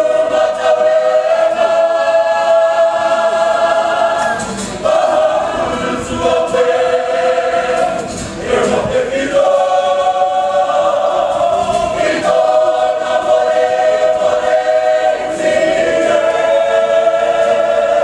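Kapa haka group of men and women singing a waiata together in long held notes. The phrases run about three to four seconds, with short breaks between them.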